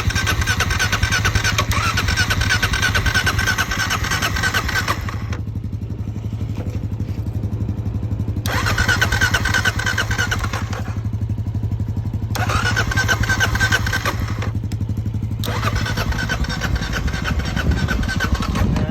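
Kawasaki KLR650 single-cylinder engine being cranked on its electric starter in four attempts of a few seconds each, with short pauses between them, and not catching: the bike won't start. A steady low hum runs underneath throughout.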